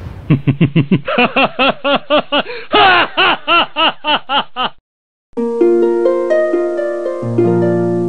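A long cackling laugh of short 'ha' syllables, about four or five a second, rising and falling in pitch, follows the fading tail of a boom and cuts off after about four and a half seconds. After a brief gap comes a bright musical sting of held chime-like notes, with a low bass note joining near the end.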